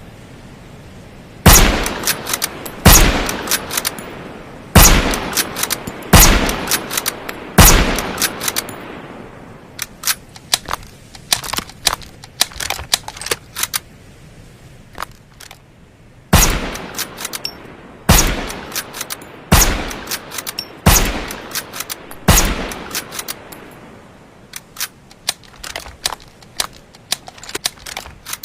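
Suppressed Mosin-Nagant bolt-action rifle firing: two strings of five shots roughly a second and a half apart, each shot a sharp crack with a short echoing tail. Between and after the strings come runs of quieter metallic clicks and clacks.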